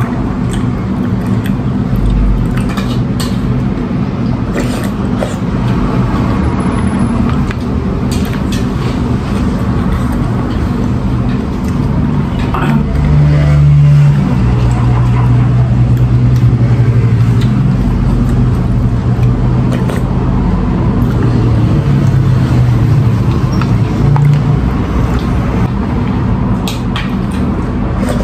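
A loud, steady low mechanical drone, like an engine running, that shifts in pitch and swells about halfway through, with occasional light clicks of spoons on bowls.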